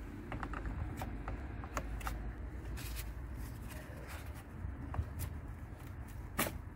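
Irregular light clicks and taps of a small ratchet and metal tool undoing the 10 mm nut on a car battery's positive terminal clamp and working the clamp loose, with a sharper knock near the end.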